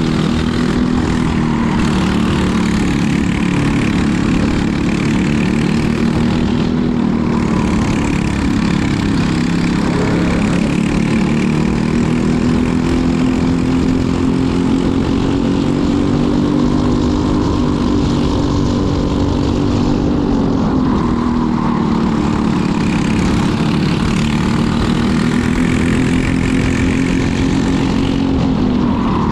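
Racing kart engine at race pace, heard onboard, its pitch climbing on the straights and dropping off when it slows for corners about ten seconds in, about twenty-one seconds in and near the end.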